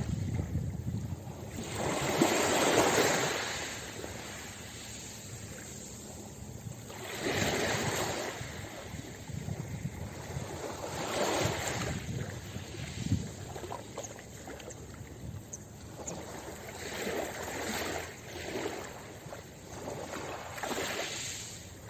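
Small sea waves lapping onto a pebble beach. Each wash swells and eases every few seconds.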